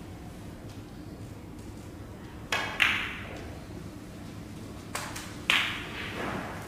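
Snooker shot: the cue tip strikes the cue ball and the balls click sharply against each other. There are two quick clicks about two and a half seconds in and two more about five seconds in, each ringing briefly.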